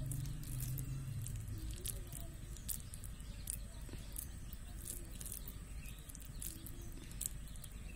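Food frying in hot oil in a pan, the oil crackling with scattered sharp pops. A low hum fades out about a second in.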